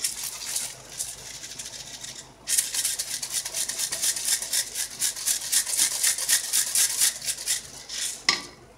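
A plastic shaker jar of dried Italian seasoning shaken over a pot of spaghetti, the herbs rattling out through the shaker holes in quick strokes. There is a brief pause a little past two seconds, then faster, louder shaking, and a sharp click near the end.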